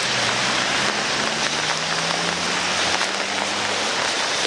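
Heavy rain pouring down, a dense steady hiss with scattered ticks of individual drops. A faint low hum runs under it from about a second in until near the end.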